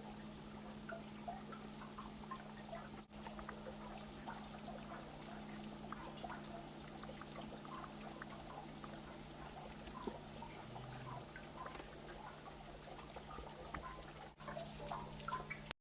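Faint water trickling and dripping, with many small irregular drops.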